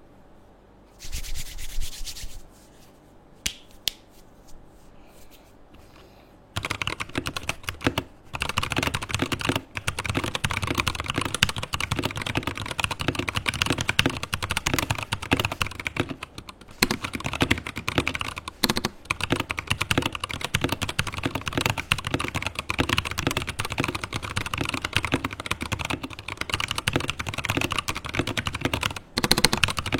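Rapid typing on a modded Rexus Daxa M84 Ultimate mechanical keyboard with EVA foam and heavy Kailh Box Crystal Pro switches, keystrokes with a deep, round sound. A few scattered sounds at first, then fast continuous typing from about six seconds in, with brief pauses.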